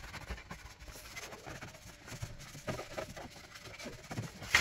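Cloth rag scrubbing and rubbing over the underside of a car bonnet and its insulation pad: an uneven rustling scrub with small irregular knocks, and one sharper knock near the end.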